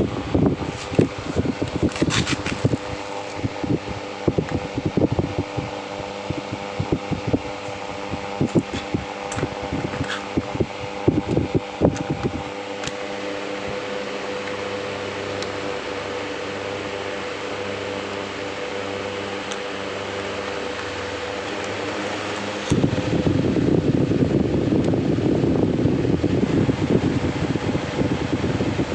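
Electric box fan running with a steady motor hum, with irregular clicks and knocks over the first dozen seconds. About 23 s in, a louder rush of air sets in abruptly over the hum.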